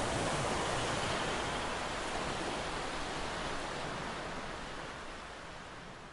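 A steady hiss of static-like noise with no notes, closing out an electronic track and slowly fading away.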